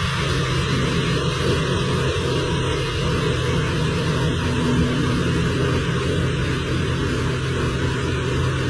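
Caterpillar backhoe loader's diesel engine running steadily, a constant low hum under an even hiss.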